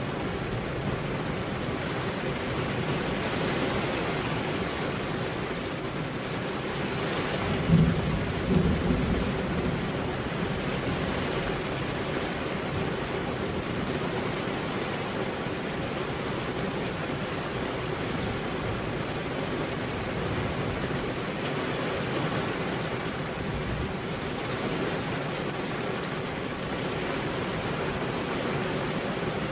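Heavy rain falling steadily on a road, an even, dense hiss. About a quarter of the way in there is a brief, louder low rumble.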